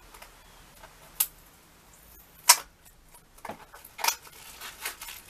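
Scissors snipping a few separate times, cutting open a small mystery pin box, with the loudest snip about two and a half seconds in. Lighter clicks and rustling of the packaging follow near the end.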